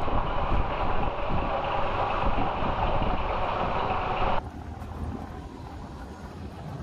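Heritage first-generation diesel multiple unit running past close by, a steady loud rush of engine and wheel-on-rail noise. About four seconds in it cuts off suddenly, leaving a much quieter low engine rumble from the unit standing at the platform.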